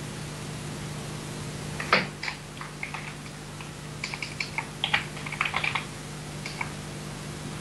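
Typing on a computer keyboard: irregular key clicks starting about two seconds in, over a steady low electrical hum.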